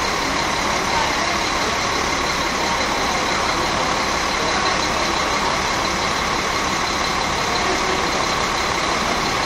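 Single-deck bus's rear-mounted diesel engine idling steadily at the stop, a low drone with a steady high whine over it.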